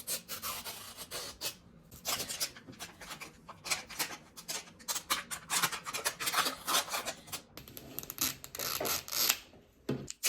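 Toy packaging being worked open by hand: irregular rubbing, scraping and rustling strokes as the package is handled and torn at.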